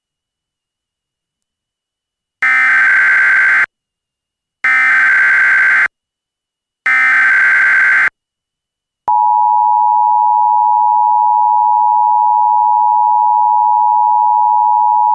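Emergency Alert System SAME header: three harsh, buzzing digital data bursts, each about a second long with a second's gap between them. About nine seconds in comes the loud, steady two-tone EAS attention signal, announcing a new alert.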